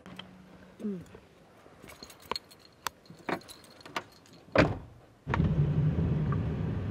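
Small clicks and rattles of someone settling into a car, then a car door shutting with a loud thud about four and a half seconds in. A moment later the car's steady running hum comes on.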